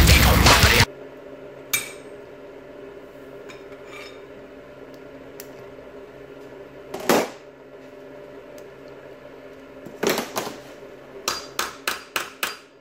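Music cuts off about a second in; then metal clinks and knocks of a steel socket and wrench being worked onto a welded-up stripped cap bolt in a cylinder head, ending in a quick run of about six sharp taps, over a steady low hum.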